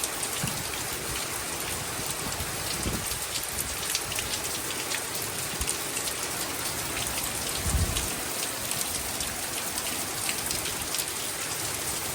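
Heavy wind-driven rain falling steadily on surfaces, pattering, with gusts of wind buffeting the microphone now and then, the strongest about eight seconds in.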